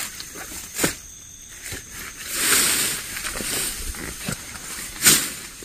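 Leaves and vines rustling and crackling as someone pushes through dense undergrowth. There is a sharp crack about a second in, a longer burst of rustling in the middle, and a louder sharp crack near the end.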